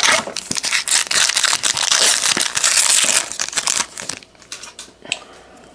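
Foil trading-card pack wrapper crinkling and being torn open, a dense crackly rustle for about four seconds that then dies down to a few light ticks.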